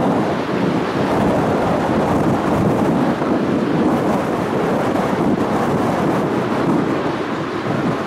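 Four-engined Airbus A340 airliner on its take-off roll, its jet engines at take-off thrust making a loud, steady rushing roar.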